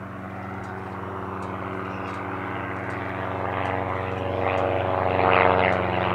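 A Piper L-4 Grasshopper and a Cessna Bird Dog flying past together, their piston engines and propellers droning steadily and growing louder as they approach. The propeller buzz is strongest in the last second or two.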